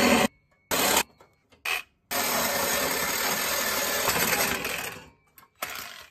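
Handheld electric power tool run in short bursts, then held on for about three seconds, then one more short burst, undoing the fasteners on the downpipe of a 2020 Audi A3.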